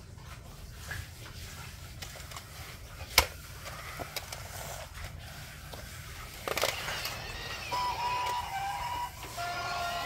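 Plastic clacking of LEGO Duplo train cars and bricks being handled, with one sharp click about three seconds in. About six and a half seconds in, the battery-powered LEGO Duplo steam train's sound unit gives a burst of hiss, then a string of held electronic tones that step in pitch.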